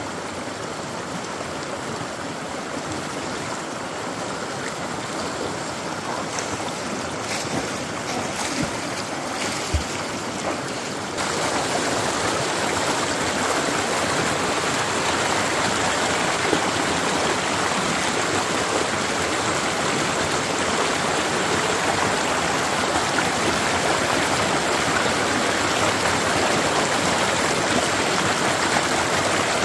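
Shallow rocky stream rushing over stones, a steady wash of water that steps up louder about eleven seconds in.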